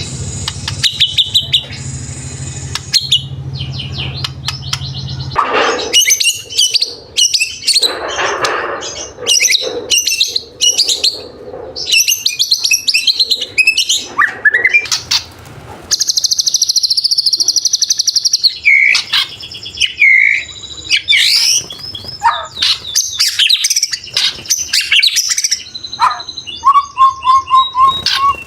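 White-rumped shama (murai batu) singing a long, varied song of whistled phrases, rapid repeated notes and harsh buzzy rattles, ending in a fast trill.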